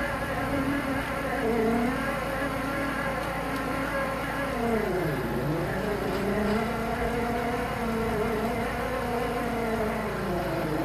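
Mini excavator's diesel engine running hard to drive a hydraulic auger boring into soil. Its note wavers, dips sharply about five seconds in, then climbs back.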